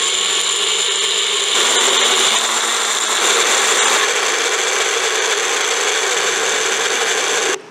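Small personal blender's electric motor running at full speed, grinding soaked red chilies and roasted chana dal with a little water into a thick chutney paste. It runs steadily with slight changes in tone, then cuts off suddenly near the end.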